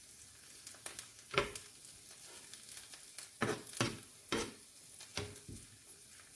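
Spoon stirring toasted raisins in a frying pan just taken off the heat: five or so short scrapes and knocks against the pan over a faint, steady sizzle.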